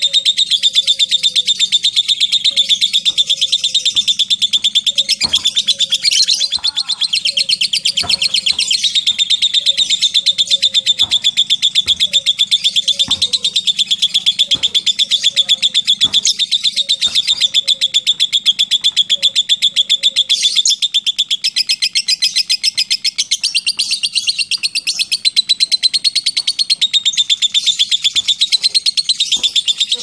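Lovebird in its long unbroken 'ngekek': a fast, high chatter of rapid ticks that runs on without a pause.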